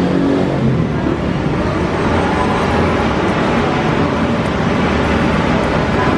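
Steady road traffic noise, a constant loud rumble and hiss with no breaks.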